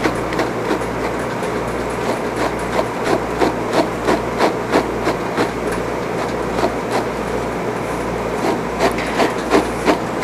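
Small grooming brush flicked rapidly through an English Angora rabbit's wool on its hind paws, a short scratchy stroke about three times a second, over a steady low hum.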